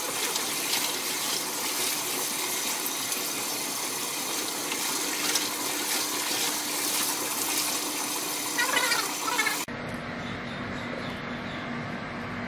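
Water running and splashing steadily as laundry is washed by hand in a plastic tub. About ten seconds in, it cuts off abruptly to a quieter background with a faint low hum.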